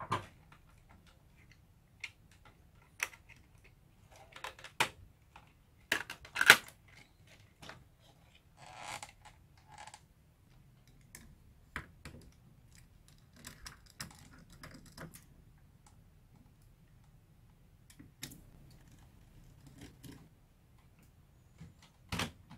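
Scattered clicks, taps and light metal clatter from hands working the metal cassette-loading housing of an opened VCR free and lifting it out of the tape deck, with a sharper knock about six seconds in and a short scrape around nine seconds.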